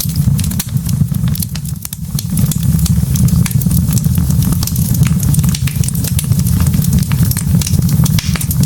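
Wood fire burning in a fireplace: a steady low rumble of the flames with frequent sharp crackles and pops from the burning logs, easing briefly about two seconds in.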